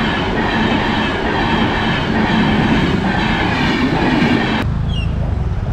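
Indian Railways passenger train coaches rolling past close by: a steady, loud rush of wheels on the rails. About four and a half seconds in it cuts off abruptly to a lower rumble.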